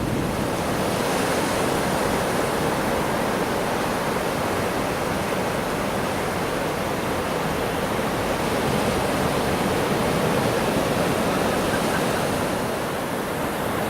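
Ocean surf washing on the beach, a steady even rush of noise without breaks.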